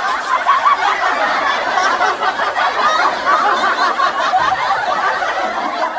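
High-pitched, many-voiced chattering laughter, continuous and with no pauses, like a sped-up comic laugh sound effect.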